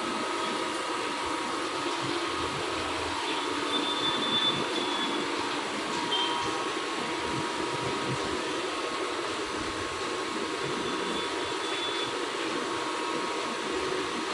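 Machining unit running steadily: a continuous mechanical hum with steady whining tones, and brief high squeals about four and six seconds in.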